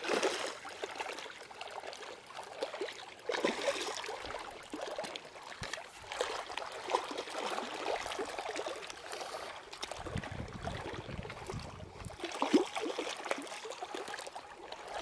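Shallow water at the edge of a lake trickling and splashing irregularly, with many small splashes. A brief low rumble comes about ten seconds in.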